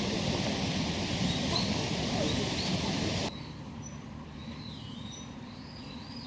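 Small birds chirping over a steady outdoor rushing noise. About halfway through the noise drops away suddenly, leaving a quieter background where the birds keep calling.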